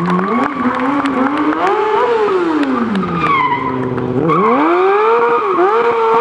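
Stunt motorcycle engine revving hard: the revs climb for about two seconds, fall away, then rise sharply about four seconds in and are held high.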